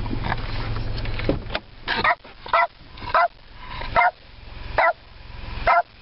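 Cavalier King Charles Spaniel barking inside a car: six short barks, about one every three quarters of a second, starting about two seconds in.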